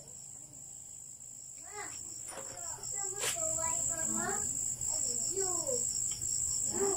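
Crickets chirping, a steady high-pitched pulsing trill, with voices talking from about two seconds in and a single sharp click midway.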